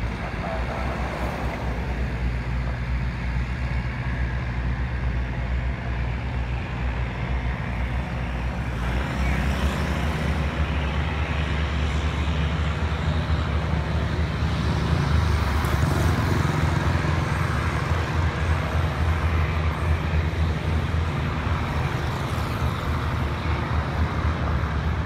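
A train passing behind the trees: a steady low engine hum under a rumbling roar that swells about a third of the way in and is loudest a little past the middle.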